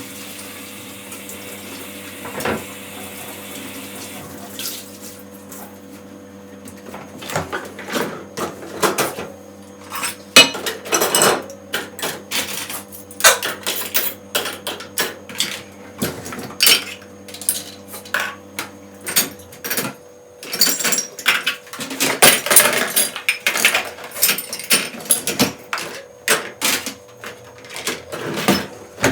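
Dishes and cutlery clinking and clattering as they are handled, in irregular quick knocks that start about seven seconds in and grow busier toward the end.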